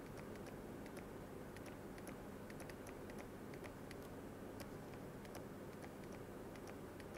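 Faint, irregular small clicks and taps of a stylus writing on a pen tablet, over a steady low background noise.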